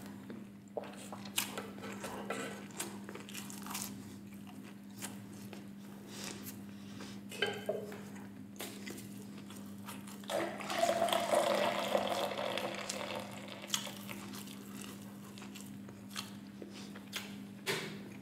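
Beer poured from a can into a glass mug: a fizzing, splashing pour of about three seconds just past the middle, the loudest sound here. Before and after it come scattered wet mouth clicks from chewing. A steady low hum runs underneath.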